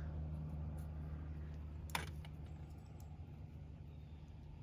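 Faint handling of a WAGO lever nut connector and wire: one sharp small plastic click about two seconds in, with a few fainter ticks, over a steady low hum.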